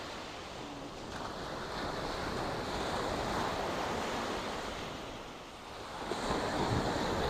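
Sea waves breaking and washing up a sandy beach, the wash swelling and easing back twice, with wind buffeting the microphone.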